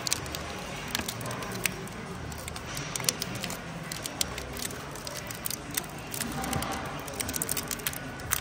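Small repair tools clicking and tapping against a smartphone being taken apart, in scattered sharp ticks over a steady low hum.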